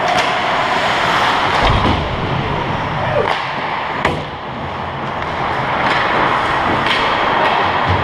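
Ice hockey play close to the net: skates scraping the ice, with sharp clacks and knocks of sticks and puck scattered through it and a low thud about a couple of seconds in.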